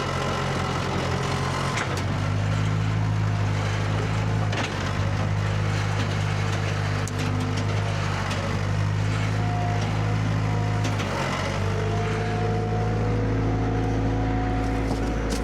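Skid steer engine running steadily, with a few light knocks and a brief dip in engine pitch about eleven seconds in.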